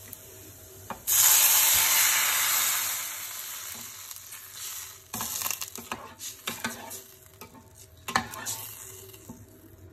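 Water poured onto dry vermicelli in a hot metal pot hisses and sizzles loudly, starting suddenly about a second in and dying down over about two seconds. After that a steel ladle stirs the pot, scraping and clinking against its side.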